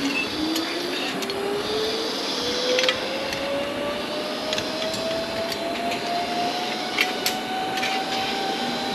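Zip-line trolley pulleys whirring along the steel cable, a single whine that rises slowly and steadily in pitch as the rider picks up speed, over a steady hiss with a few sharp clicks.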